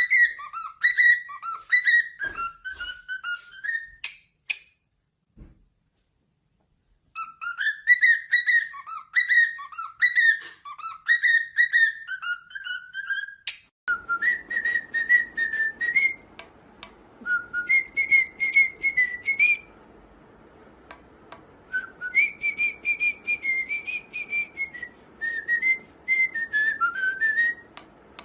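A pet bird whistling: quick phrases of short rising notes that stop for a couple of seconds and then resume. About halfway through comes a different whistle of longer, wavering notes over a steady hiss.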